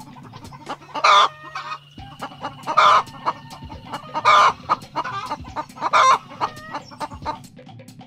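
Domestic chickens calling: four loud, short calls about a second and a half apart, with faint clicks between them.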